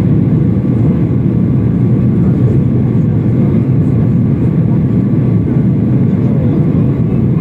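Jet airliner cabin noise from a window seat over the wing: the engines and airflow make a loud, steady, low rumble in flight.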